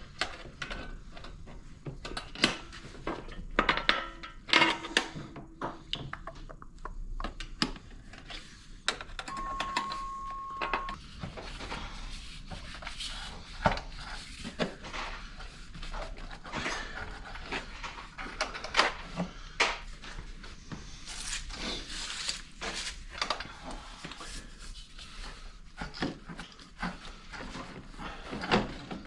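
Scattered metallic clicks, clinks and knocks of hand work on a snowmobile's exhaust, unhooking the exhaust springs with a spring puller tool. A short steady high tone sounds about ten seconds in.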